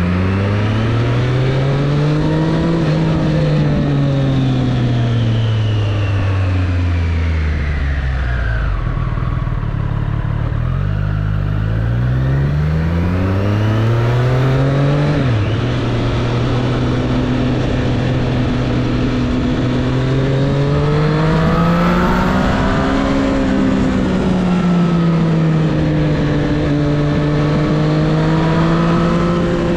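2024 Triumph Street Triple 765 RS's 765 cc inline three-cylinder engine under way. Its revs climb, fall away off the throttle, climb again and drop suddenly about halfway through, then rise and fall more gently at lower revs.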